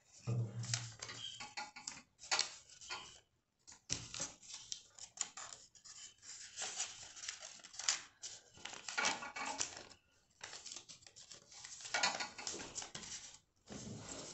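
Sheets of paper rustling and crinkling in irregular bursts as they are handled, folded and rolled, with light knocks against a glass tabletop.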